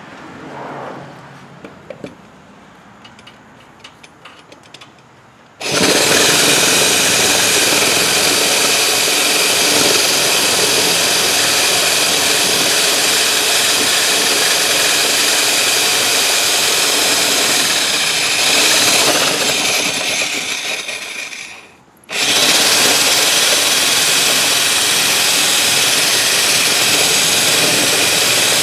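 A power drill starts about six seconds in and runs steadily, boring a long bit through the wall. It winds down and stops about sixteen seconds later, then starts again at once and keeps running.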